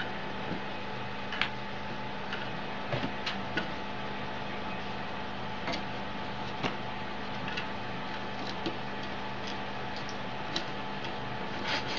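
A cat rummaging in a low wooden wardrobe shelf and pulling things out onto the floor: scattered, irregular light clicks and knocks, about one a second, over a steady hum.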